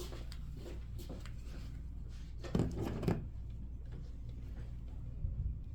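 A few short knocks and thumps, the two loudest about half a second apart near the middle, over a steady low hum.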